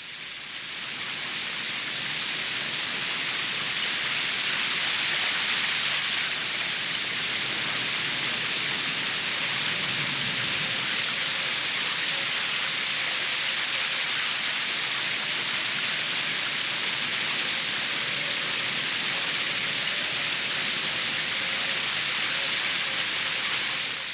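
Steady hiss of noise like heavy rain, fading in over the first couple of seconds and out again at the end, with a faint steady tone underneath.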